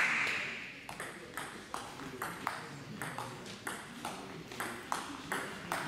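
Celluloid/plastic table tennis ball clicking off the rackets and table in a rally, a steady run of sharp ticks about three a second. Applause dies away in the first half-second.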